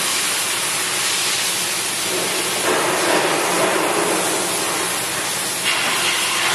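Commercial vegetable slicing machine running with a steady, loud hiss-like noise that fills out about two and a half seconds in.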